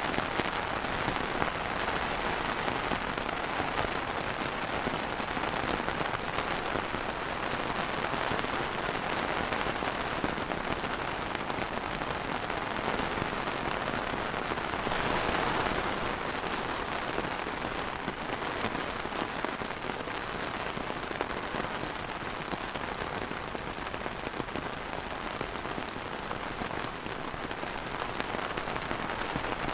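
Steady rain falling on a surface, an even hiss of many drops, swelling slightly about halfway through.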